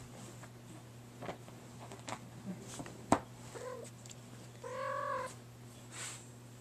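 A tabby kitten gives one short, high mew about five seconds in, with a fainter brief chirp a second before. Scattered soft taps and one sharp click about three seconds in come from its play on the couch.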